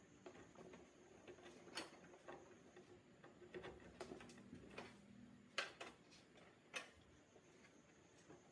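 Faint, irregular small clicks and light taps, a few at a time with gaps between, over a quiet room hum.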